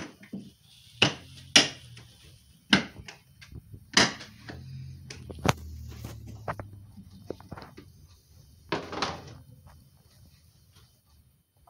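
Clear plastic tub being handled and shifted on a table: a series of sharp plastic knocks and thumps, with a longer stretch of rustling about nine seconds in.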